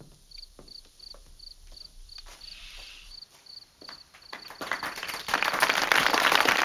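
Crickets chirping in a steady rhythm, about three chirps a second. About four and a half seconds in, an audience starts applauding, and the applause quickly grows loud and covers the crickets.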